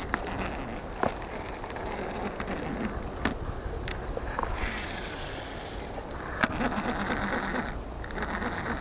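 Daiwa Millionaire ST-1000 round baitcasting reel being cranked on a retrieve, its gears running with a steady rough whirr, with a few sharp clicks.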